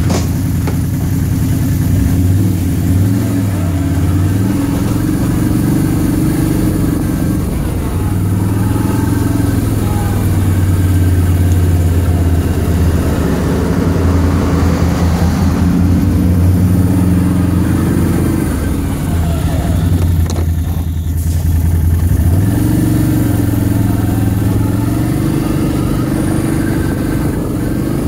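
Can-Am ATV engine running throughout as the machine rides off, its pitch rising and falling with the throttle. The engine eases off about twenty seconds in, then picks up again.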